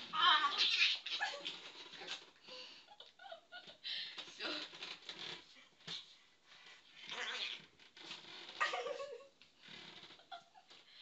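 Small dog making short play growls and breathy grunts in irregular bursts while mouthing a person's hand.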